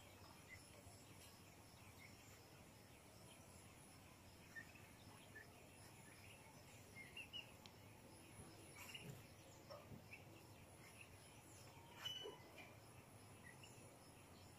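Near silence: faint outdoor ambience with scattered short bird chirps and a steady high-pitched insect drone. There are a couple of soft knocks, the loudest about twelve seconds in.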